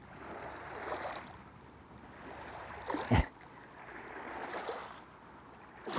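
Small waves lapping on a gravel shore, swelling and fading every second or two, with one sharp knock about three seconds in.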